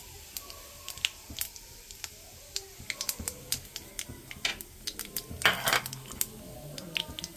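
Cumin seeds crackling in hot oil in a kadhai: irregular sharp pops, with a brief denser patch of crackle about five and a half seconds in. This is the tempering stage, the seeds spluttering because the oil is hot enough, the cue before the onions go in.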